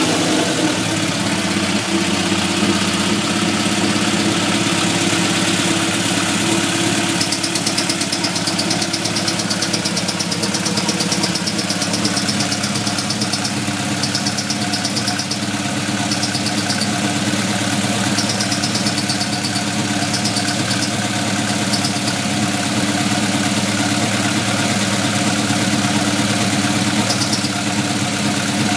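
Vehicle engine idling steadily just after a rev dies away, with a high-pitched hiss or chirp coming and going in short spells through the middle. The engine is being recorded because of a strange noise that its owner suspects is a fault.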